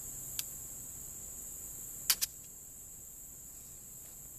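Flintlock rifle's lock falling: two sharp clicks close together about two seconds in as the flint strikes the frizzen and the pan flashes, with no shot following, because the ball and patch were loaded without powder (a dry ball). Crickets chirp steadily throughout.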